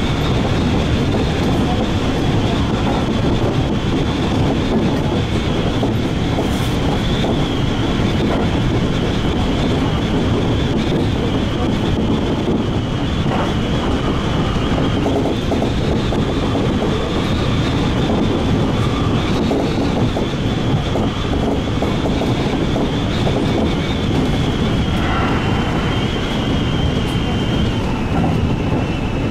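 Seibu 2000 series electric train running along the line, a steady rumble of wheels on track with a continuous high whine over it.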